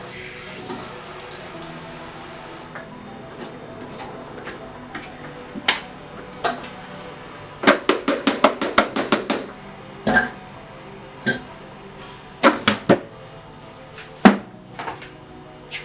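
Running tap water stops about three seconds in, then kitchenware clinks and knocks as it is handled at the sink, with a quick rattle of about ten clicks in the middle and one loud knock near the end. Steady background music plays underneath.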